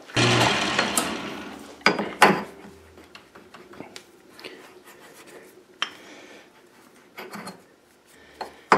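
Abrasive polishing of a turned steel shaft on the lathe: a loud rubbing hiss for about two seconds that fades out. Then come two sharp metal clicks and quieter tapping and scraping as the handwheel is worked onto the shaft to check the fit.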